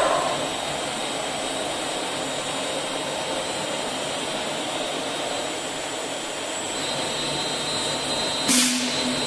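Automatic brush satin-finishing machine running with a steady mechanical rushing noise. Its brush head travels across clear of the workpiece. Near the end a sudden louder rush with a low hum cuts in.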